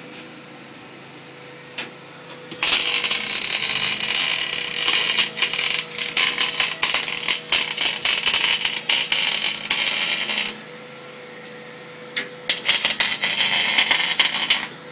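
MIG welding arc crackling and sizzling as wire from a Miller S-22P12 constant-speed wire feeder burns into the steel: one long bead of about eight seconds, a short pause, then a second bead of a couple of seconds near the end. A faint steady hum runs beneath.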